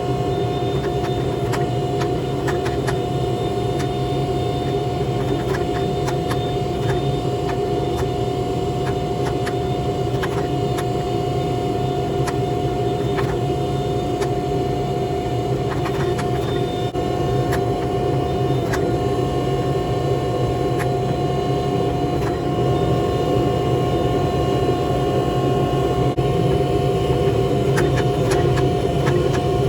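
A steady machine roar with a constant hum and a few faint ticks.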